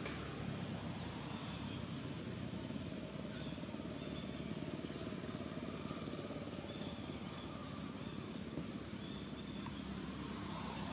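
Steady outdoor background ambience: an even hiss, with faint high chirps now and then.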